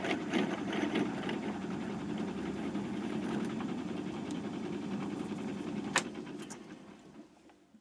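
Small metalworking lathe running while facing the cut end of a phosphor bronze bearing insert. About six seconds in there is a sharp click, and the lathe runs down to a stop.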